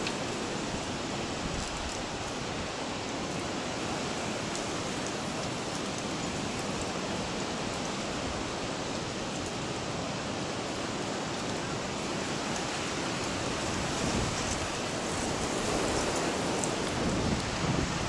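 Steady rushing noise of wind and Black Sea surf, getting a little louder near the end as wind starts to buffet the microphone.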